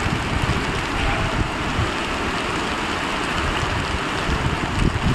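Muddy floodwater torrent rushing steadily, a loud unbroken rush of water with an uneven low rumble underneath.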